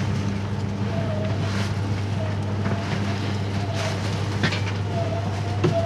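Running noise heard inside the cabin of a 583-series electric train: a steady low hum under a wavering whine, with a few short knocks from the wheels on the track.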